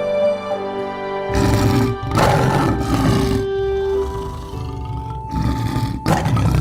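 Deep wild-animal roars over background music with held tones: a long roar starting about a second in and lasting about two seconds, and a shorter one near the end.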